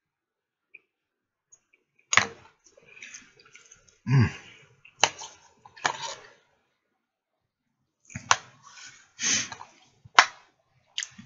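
Close-up eating sounds of a man working on pork ribs: wet lip smacks, sharp mouth clicks and chewing in irregular bursts, with a brief low hum about four seconds in.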